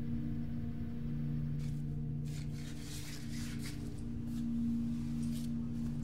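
A sustained low drone of background score: several steady low tones held together, swelling slightly about four and a half seconds in. A few faint scratchy noises sit over it in the middle.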